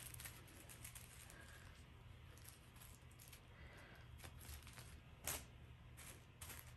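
Faint handling sounds of small plastic bags of diamond-painting drills being picked up and laid down: scattered light ticks and rustles, with one sharper tick about five seconds in.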